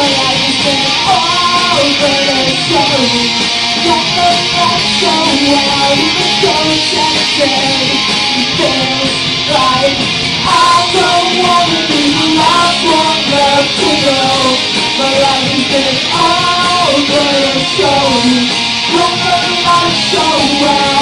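Punk rock band playing live and loud: guitars with a voice singing over them.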